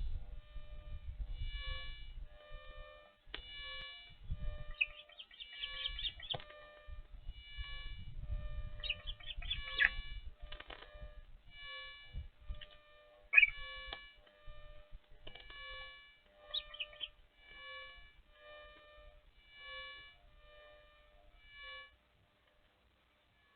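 An unexplained pitched hum pulsing about one and a half times a second, stopping near the end, with a few short high osprey chirps over it and low rumbles underneath.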